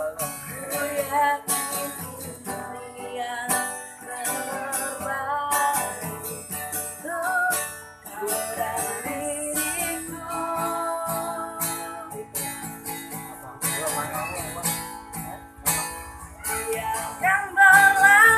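A woman singing an Indonesian pop ballad, accompanied by a strummed acoustic guitar.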